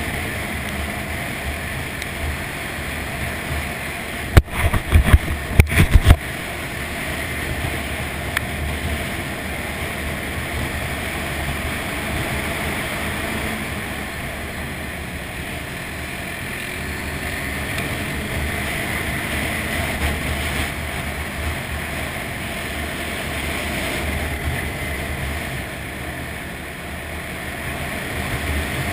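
ATV engine running steadily under way on a dirt trail, with wind rushing over the microphone. A cluster of loud, sharp knocks lasting about two seconds comes some four seconds in.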